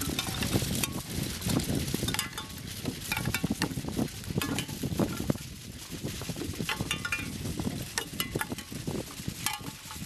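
Wind sculpture of recycled odds and ends moving in the wind, its hanging parts knocking and clinking against each other in irregular light taps, some with a brief ring.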